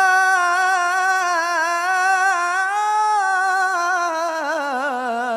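A solo male voice singing into a microphone in Banjari devotional style. He holds a long steady note, then draws it out in a melisma that bends up and down and settles lower near the end.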